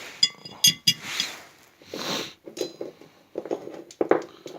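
Loose metal parking-brake parts clinking and rattling as they are gathered up by hand. There are a few sharp ringing clinks in the first second, then scraping and knocking as the parts are handled.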